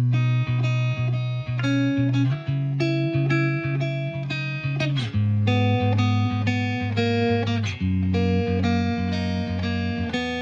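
Background music of plucked guitar notes in a steady rhythm.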